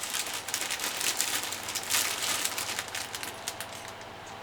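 Crinkling and rustling of a plastic model kit's sprues and packaging being handled: a rapid run of small crackles that dies away near the end.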